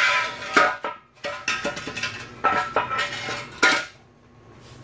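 A steel pry bar clanking against the steel transmission crossmember under a truck as it is levered loose: about six sharp metal-on-metal clanks with a ringing after each, stopping near the end.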